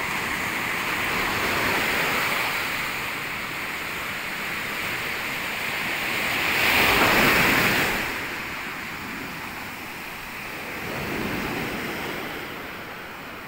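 Ocean surf breaking and washing up a sandy beach, a steady rush that swells loudest about halfway through, with smaller swells near the start and near the end.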